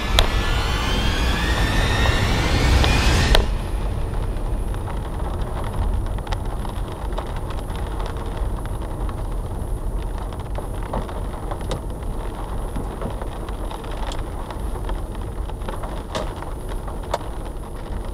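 Car engine revving with a rising whine for about three and a half seconds, then cutting off abruptly. After that, a low steady rumble of road and tyre noise as the car rolls slowly, with scattered sharp ticks.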